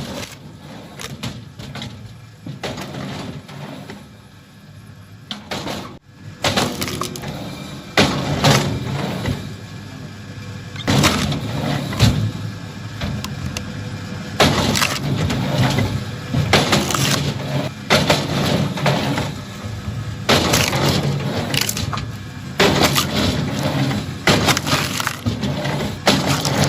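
Wood repeatedly cracking and breaking apart under a machine, in sharp loud breaks every second or two from about six seconds in, over a steady low machine rumble.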